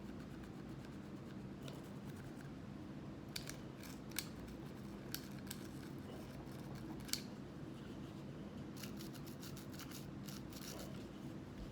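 Pistol parts being scrubbed and handled during cleaning: a few sharp light clicks, then rapid scratchy brush strokes near the end, over a steady low hum.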